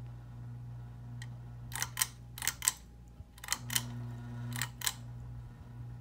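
Hampton Bay Saint Clair ceiling fan's pull-chain switch clicking through its settings, four sharp double clicks over about three seconds, over the steady hum of the fan motor. The hum fades briefly after the second pair of clicks and comes back changed, as the speed setting changes.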